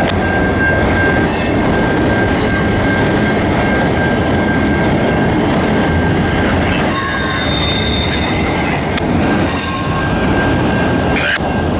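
Freight train of multilevel autorack cars rolling past a level crossing: a steady rumble and clatter of steel wheels on rail. Shrill wheel squeal comes in about halfway through and again a few seconds later.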